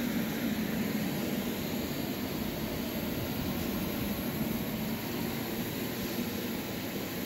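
Industrial blower equipment running with a steady whir, strongest as a low hum with an even hiss over it.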